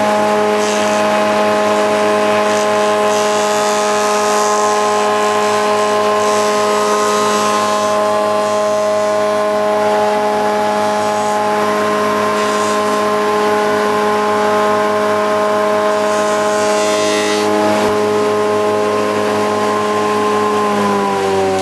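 Spindle moulder running with a steady hum while its profile cutter block cuts a curved timber sill, a hissing cutting noise coming and going with the passes. Near the end the machine is switched off and its pitch falls as it spins down.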